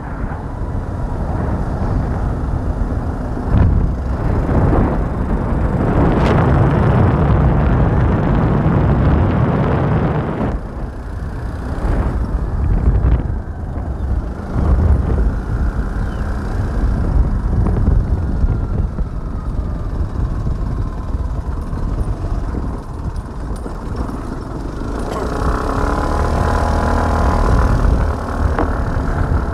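Heavy wind rumble on the microphone with road and engine noise from a moving vehicle, surging and easing as it travels. A higher hum joins in near the end.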